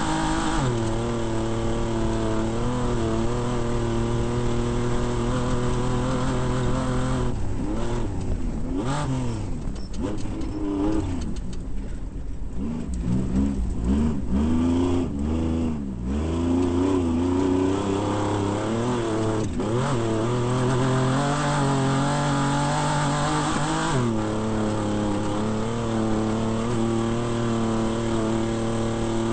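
Off-road desert race vehicle's engine running at steady high revs. Several seconds in, the revs drop and climb again over and over for about ten seconds, then settle back to a steady high pitch.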